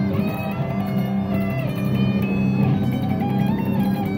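Telecaster electric guitar played through an amp with a heavy metal tone: fast picking on low notes, with a melodic line moving above them.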